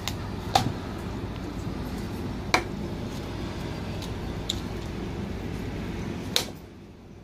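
Butcher's knife cutting up a skinned raw chicken on a wooden block, the blade knocking sharply against the block four times, about every two seconds, over a steady low background noise.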